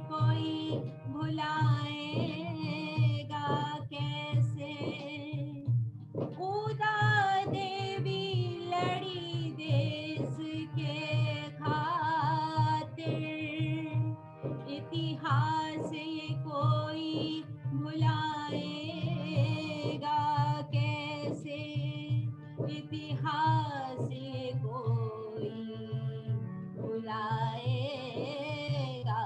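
A woman singing a wavering, ornamented melody, accompanied by a tabla keeping a steady beat and a harmonium.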